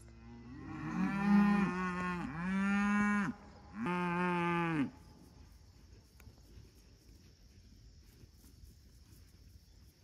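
Hereford cattle mooing: three long moos in quick succession, ending about halfway through.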